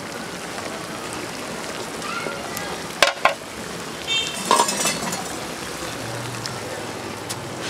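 Steady sizzling hiss from a biryani pot over the fire. There is a pair of sharp metal clinks about three seconds in and a brief clatter of pots around four and a half seconds.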